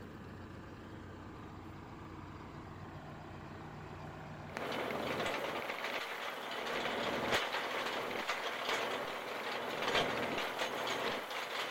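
Ursus C-392 tractor's diesel engine running steadily as it pulls a disc harrow through stubble. About four and a half seconds in, the sound jumps to a louder, rougher noise with scattered clicks and knocks, heard close to the tractor with the harrow discs cutting the soil.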